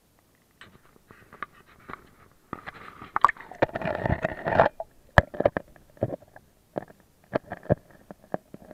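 Water sloshing and gurgling around a waterproof camera as it is dipped under the river's surface, with sharp knocks from handling. The densest churning comes about three to four seconds in, followed by scattered knocks.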